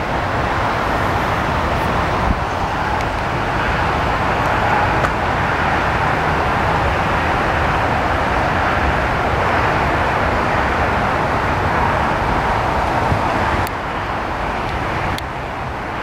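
Steady rushing noise of road traffic, with no horn sounding. It drops slightly in level about fourteen seconds in.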